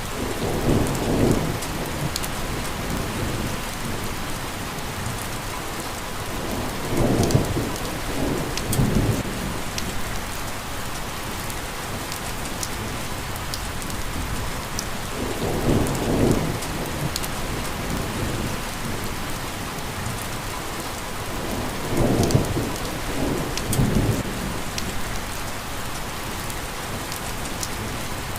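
Steady rain falling, an even hiss, with six brief low rumbles rising through it at uneven intervals.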